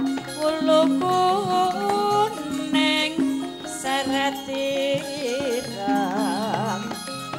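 A Javanese pesindhen (female gamelan singer) singing a long, wavering vocal line with vibrato through a microphone, over gamelan music holding steady low notes.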